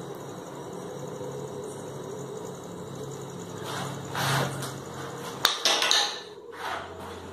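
A steady low hum, then a rustle about four seconds in and a single sharp knock about five and a half seconds in, followed by brief scuffling noises.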